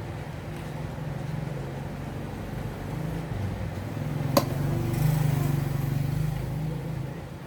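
A steady low mechanical hum that wavers in pitch, with one sharp click about four and a half seconds in.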